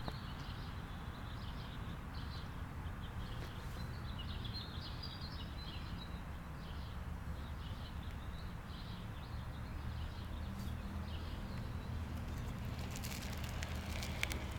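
Small birds chirping repeatedly over a steady low outdoor rumble. Near the end, a run of clicks and crackle as a child's wooden balance bike rolls past close by on asphalt.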